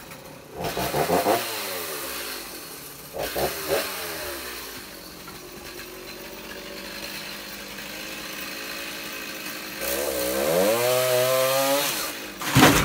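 Chainsaw cutting into a palm trunk: revved briefly twice, then running steadily under load, then revving up high as the cut goes through. Near the end comes a sudden loud crack as the top of the palm gives way and falls.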